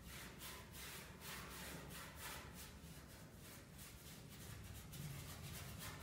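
A paintbrush stroking paint onto the inside of a sheet-steel washing-machine cabinet: faint, quick scratchy swishes, several a second.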